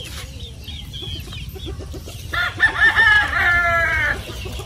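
Chickens clucking in a run of short repeated notes, then a rooster crows once, loud and about two seconds long, starting a little after two seconds in.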